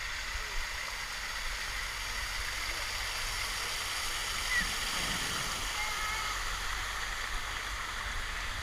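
Steady rush and splash of water from a small artificial rock waterfall pouring into a lazy river, with faint distant voices around the middle.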